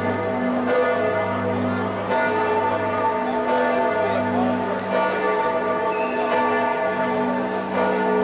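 The bells of Giotto's Campanile ringing, with a new stroke about once a second. Each stroke rings on under the next, so the tones blend into a continuous sound with a deep hum beneath.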